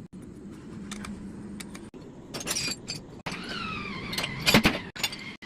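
Metal parts of an air impact wrench clinking, then the wrench run free: its air motor spins up with a rising whine that levels off and holds steady, with a sharp click about four and a half seconds in.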